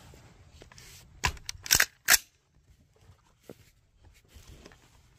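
A .223 rifle with a 16-inch barrel fires a single sharp shot about two seconds in, just after a few short clicks.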